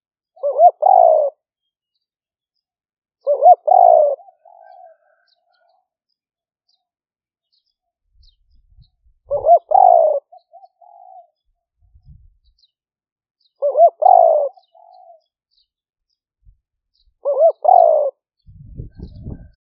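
Spotted dove cooing: five phrases a few seconds apart, each a quick pair of notes running into a longer coo, followed by a faint short note.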